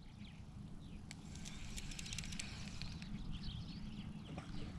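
Wind rumbling on the microphone at the water's edge, with faint bird chirps scattered through and a run of light clicks from about one and a half to two and a half seconds in.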